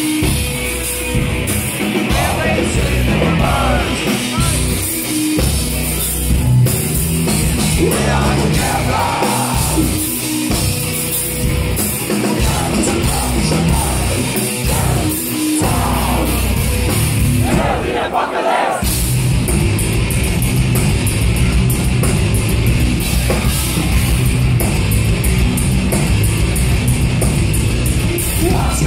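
Heavy metal band playing live, with distorted guitars, a drum kit and a singer's vocals, recorded from within the crowd. About two-thirds of the way in the bass drops out briefly, then the band comes back in with fast drumming.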